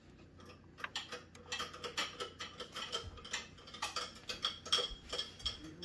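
Cutlery and dishes clinking and clattering in a kitchen sink as they are handled: a rapid run of small clicks and knocks with a ringing metallic note, starting about a second in.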